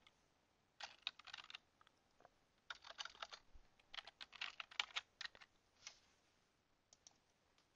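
Faint typing on a computer keyboard: several short bursts of quick keystrokes, then a couple of single clicks near the end.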